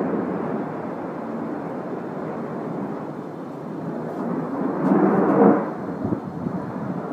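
Rumble of Blue Angels F/A-18 Hornet jets passing overhead, swelling about five seconds in.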